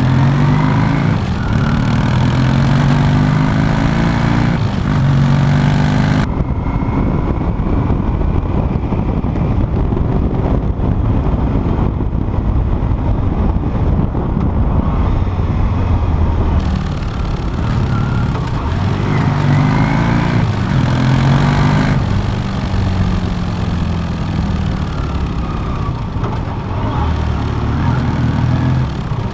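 Yamaha motorcycle exhaust while riding, pulling up through the gears: the engine note rises in pitch and drops back at each shift. Partway through, the sound changes abruptly between two microphones, one taken close to the exhaust and one through the GoPro's built-in microphone, and for a stretch the treble is gone and the sound is duller.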